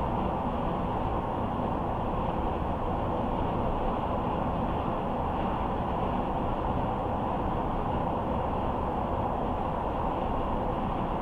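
A car driving at a steady road speed: an even, unbroken hiss of tyre and road noise.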